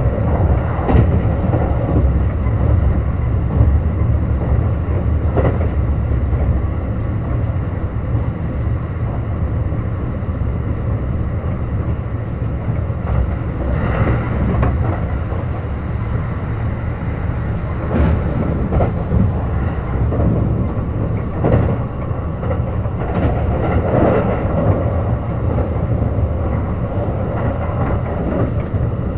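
Kintetsu Urban Liner Plus limited-express train running at speed, heard from inside the car: a steady low rumble with scattered knocks from the wheels and track.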